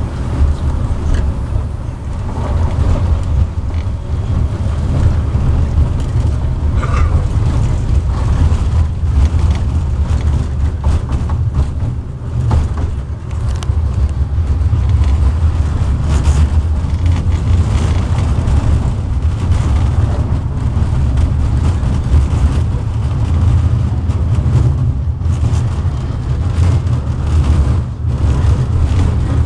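KTM-19 tram in motion, heard from inside the car: a steady low rumble of the running tram, with scattered clicks and clatter over it.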